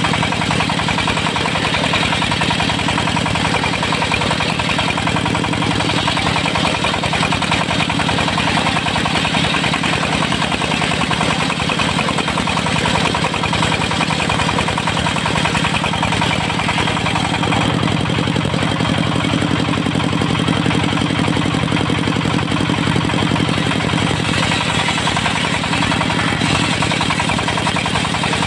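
Diesel engine driving a mobile circular sawmill, running steadily at an even speed.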